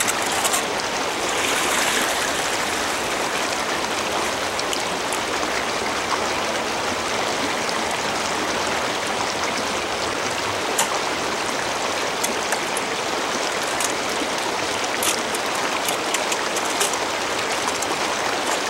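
Creek water running steadily, with a few short, sharp clicks from about ten seconds in as the metal sluice box is handled over a bucket.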